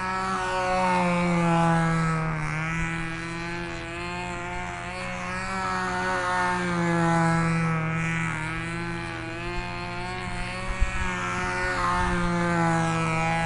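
Sig Magnum control-line stunt plane's model glow engine running steadily at high speed in flight, its buzz swelling and fading about every five and a half seconds as the plane circles the pilot.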